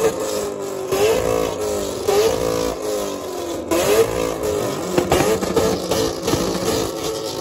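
Car engine revved again and again, each rev climbing sharply in pitch and sinking back, roughly once a second.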